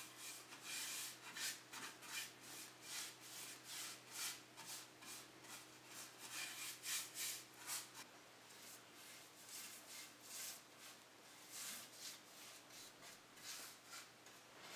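Paintbrush bristles stroking stain onto a tulip poplar frame: a run of short swishing strokes, about two or three a second, with fewer of them for a while past the middle.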